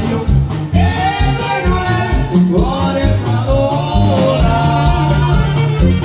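Norteño dance music played live: a steady drum beat over bass notes, with a gliding lead melody above.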